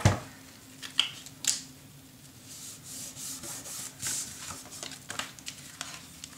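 A hand rubbing and smoothing paper on a tabletop, with a sharp knock at the start and a couple of crisp clicks and taps of paper and tools being handled.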